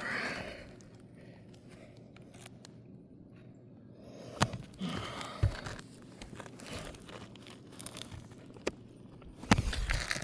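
Scraping and crinkling of asphalt roofing shingles being handled, with scattered sharp clicks and a busier burst of handling near the end.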